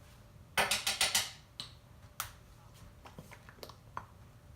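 Clicks and clatter from a Dijon mustard bottle being handled: a quick run of sharp knocks about half a second in, then a few single clicks and taps.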